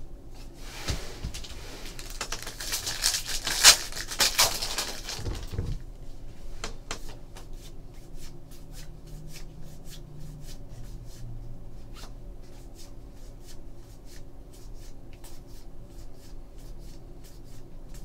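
Trading cards being flipped through by hand: rustling and sliding of the stack for the first few seconds, then a long run of quick, light clicks as cards are flicked from the front to the back of the stack one after another.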